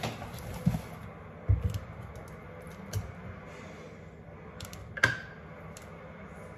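Small handling sounds at a kitchen counter: a few dull knocks and light clicks, and a sharp clink with a short ring about five seconds in. They come as a plastic lid is taken off a stainless steel tumbler and set down, and a plastic honey bottle is picked up.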